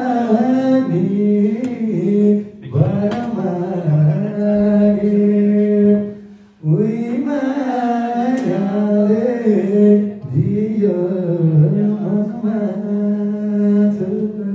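A man singing unaccompanied into a handheld microphone, in long phrases with drawn-out held notes, pausing briefly for breath about every four seconds.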